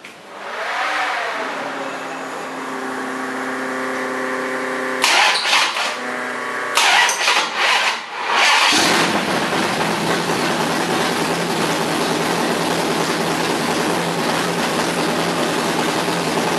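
Mopar 440 big-block V8 drag-race engine with a 600-lift roller cam and big-tube headers being started. The starter whines as it cranks, the engine fires in short loud bursts about five seconds in and again around seven seconds, then catches and settles into a steady, loud idle from about nine seconds on.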